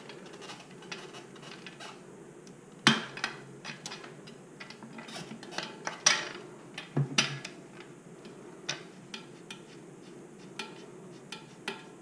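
Scattered clicks, clacks and knocks from handling a garden sprayer and its drilled-out hose attachment threaded onto a bicycle wheel's tubeless valve stem, with a few sharper knocks about 3, 6 and 7 seconds in.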